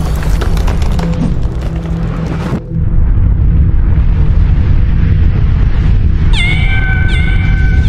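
A deep, steady rumbling sound effect with crackling until about two and a half seconds in, dropping briefly and then returning as a low rumble. From about six seconds in, a cat meows several times in quick succession, each cry sliding down in pitch.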